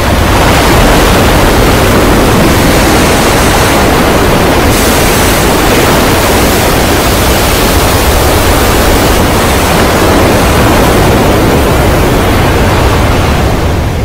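Heavy surf and wind: a loud, steady rush of breaking waves, with no pauses or separate crashes.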